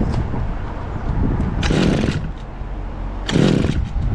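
Kawasaki TF22 engine pump's small two-stroke engine running after its clogged carburettor was cleaned, rising briefly in revs twice, about two seconds in and again near the end.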